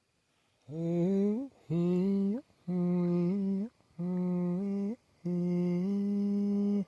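A man's voice chanting wordlessly in five held notes, each stepping up in pitch at its end; the last note is the longest.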